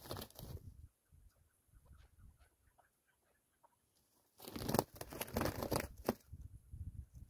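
Chukar partridge beating its wings hard against the grass while caught in a hunter's ground trap: a bout of flapping right at the start, and a longer, louder one from about four and a half to six seconds in, with faint scratching in between.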